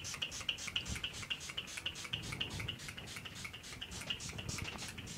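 Hand trigger spray bottle spraying seat-care liquid onto a motorcycle seat: quick, even squirts, about five a second, stopping near the end.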